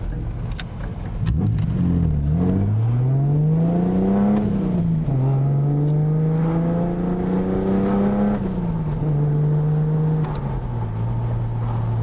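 Datsun 280ZX's 2.8-litre straight-six, freshly fitted with a rebuilt cylinder head, pulling the car under acceleration. The engine note climbs, then drops back at each of two or three gear changes, and settles to a steady cruise near the end.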